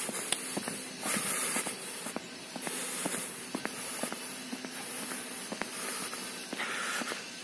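Footsteps of someone walking on an asphalt road: scattered light clicks, with a brushing hiss that swells about every second and a half.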